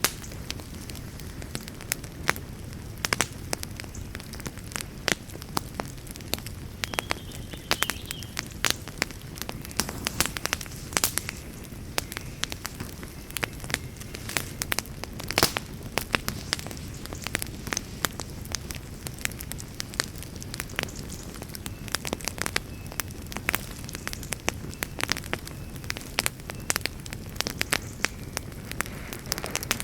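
Wood fire burning in a fireplace: a steady low rush of flame with frequent sharp, irregular crackles and pops.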